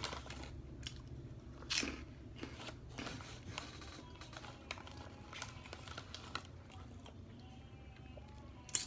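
Close-miked eating sounds: chewing and crunching food, with scattered small clicks and rustles and a sharper crunch about two seconds in and again near the end.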